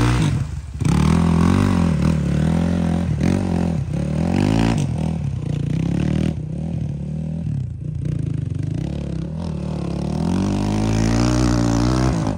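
Dirt bike engine revving hard again and again, its pitch climbing and falling, as the rear wheel spins in deep mud and throws it up.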